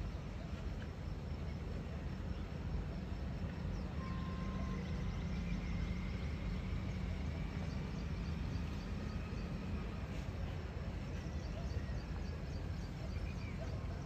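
Steady low rumble of background noise, with faint high chirps now and then.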